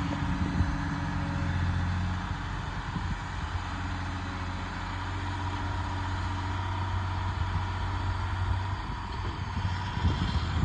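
Liebherr R946 long-reach excavator's diesel engine running steadily, with a thin steady whine above the engine note.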